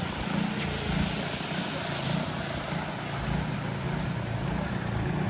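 City street traffic: a steady low engine hum from nearby vehicles, swelling and fading slightly.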